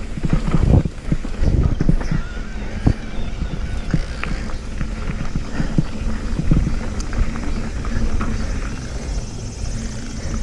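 Mountain bike riding over a rough dirt trail: steady wind rumble on the microphone with a stream of irregular knocks and rattles as the bike bounces over roots and rocks.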